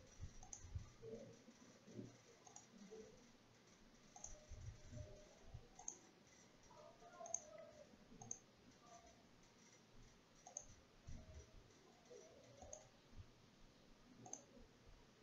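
Faint, irregular clicks of a computer mouse button, a dozen or so, over near-silent room tone.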